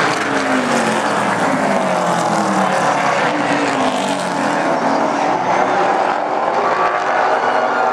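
Super stock race cars' engines running hard as they race in a pack, their pitches rising and falling as they pass through the turn and onto the straight.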